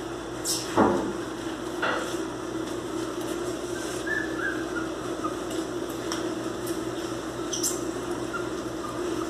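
Miniature pinscher puppies scuffling on a tiled floor: a loud knock about a second in, a few smaller knocks and clicks, and some faint short squeaks around the middle, over a steady low hum.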